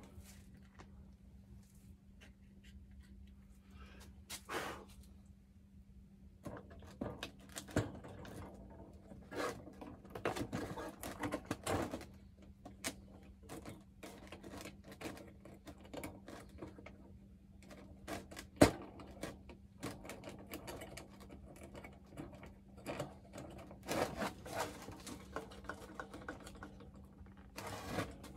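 Scattered light clicks, taps and rustles of tools and parts being handled on a workbench, with one sharp click about two-thirds of the way through, over a faint steady hum.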